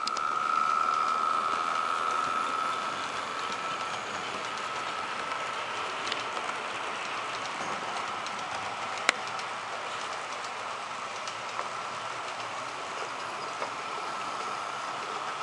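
HO scale model train running on the track: a steady whine over a rolling noise with faint ticks. It is loudest in the first few seconds as the cars pass close, then eases off. A single sharp click comes about nine seconds in.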